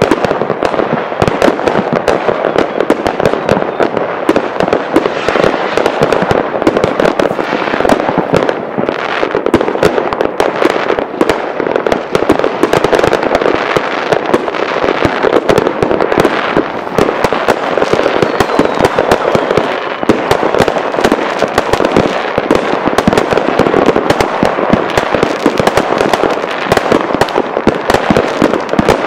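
Many fireworks going off at once: a dense, continuous barrage of bangs and crackling from aerial shells and firecrackers, with no break.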